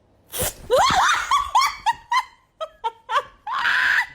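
A person laughing hard in a quick run of high-pitched bursts, with a longer breathy squeal near the end.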